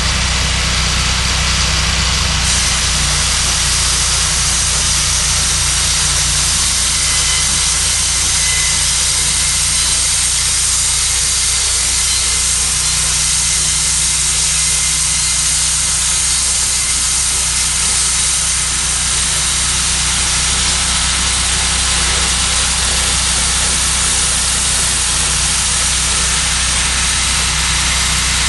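Cook's HD3238 portable band sawmill running steadily: a constant engine hum under a continuous high hiss.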